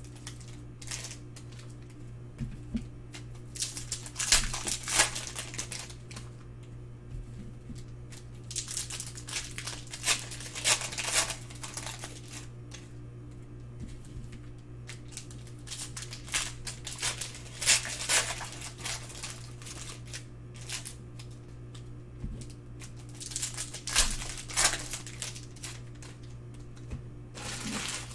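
Foil wrapper of a Prizm Mosaic basketball card pack crinkling and tearing as it is opened, then the cards rustling as they are handled. The sound comes in repeated short spells of crackling.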